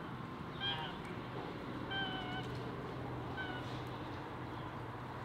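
Domestic geese calling: three short high calls, the longest about half a second, over a faint steady low hum.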